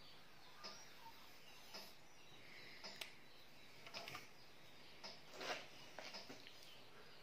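Near silence: a faint steady background with scattered short, high chirps and a few light taps, the most distinct about five and a half seconds in.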